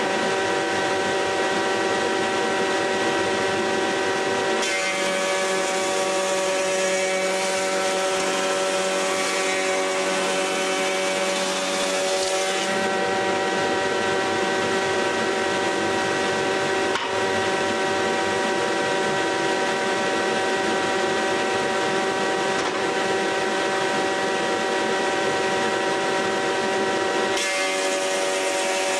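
Logosol H410 planer-thicknesser running together with its dust extractor, a steady whine. About five seconds in, a board feeds through the cutterhead and adds a rougher cutting noise for about eight seconds. Another board starts through near the end.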